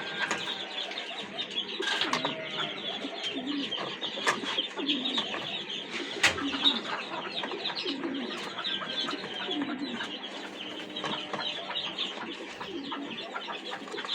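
Birds calling in a poultry yard: many rapid high chirps, with low cooing or clucking calls repeating every second or so. A single sharp click sounds about six seconds in.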